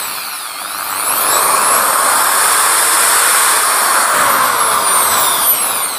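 Buildskill Pro corded hammer drill motor running free with no load. Its whine dips briefly near the start, then holds steady, and starts to wind down near the end.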